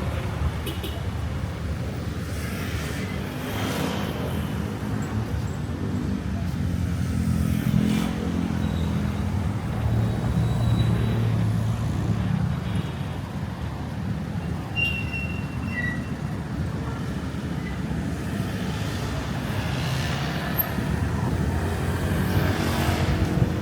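Road traffic: a steady low engine rumble with vehicles passing, one growing louder and fading about a third of the way in and more going by near the end.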